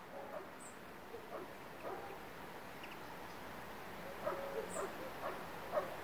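Short animal calls, a few spread out early on and a quicker run of them in the last two seconds, over a steady background hiss.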